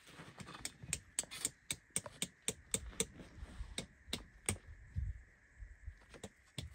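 Crisp crunching clicks of cold, packed snow being worked by hand while a tent guy line is anchored, in a quick run of about three to four a second that thins out after about four and a half seconds.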